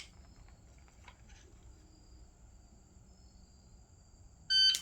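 Faint steady high-pitched insect trilling, with a few small clicks in the first second and a half. Near the end, a shot timer gives its loud electronic start beep once.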